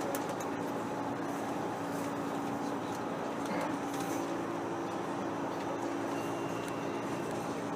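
Steady hum and rumble inside a New York City subway car with its doors closed, a low drone running under an even noise.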